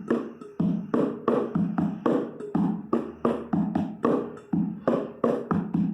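Improvised percussion on kitchen pots and containers playing a funk beat: a steady pattern of sharp strikes, about three a second, each with a low, short ring.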